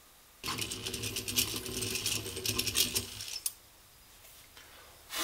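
Stanley 803 egg-beater hand drill cranked to bore into wood: a whirring gear drive with a rapid, rattly clicking, starting about half a second in and stopping abruptly about three seconds later. A short hiss starts right at the end.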